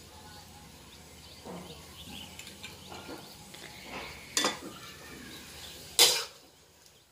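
Metal spatula clanking and scraping against a wok during a stir-fry, with one loud clank about six seconds in and a lighter clink a couple of seconds before it, and faint small clinks earlier.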